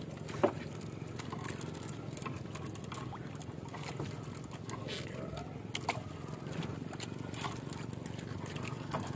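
Sea water washing around a small outrigger boat while a fishing net is hauled in by hand over the side. A low, steady wash is dotted with faint scattered ticks and small splashes from the net and hull.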